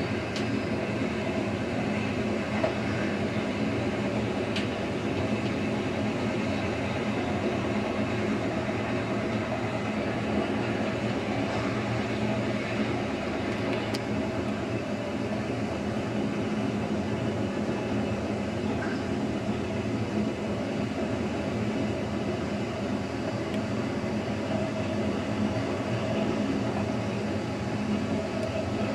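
Narrow-gauge Rhaetian Railway train running along the track: a steady rumble of wheels and running gear, with a few faint clicks.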